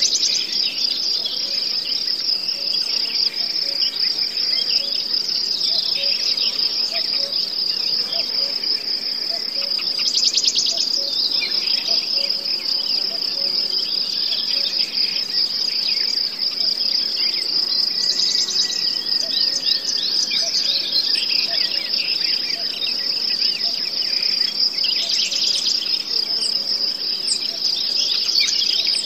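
Steady, high-pitched chorus of chirring insects, like crickets, running on without a break, with brief louder bursts of fast chirping three times.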